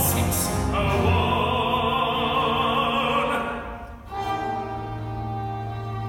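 A male singer holds a long, loud note with strong vibrato over a theatre orchestra. About four seconds in, the voice stops and the orchestra carries on with a sustained, quieter chord.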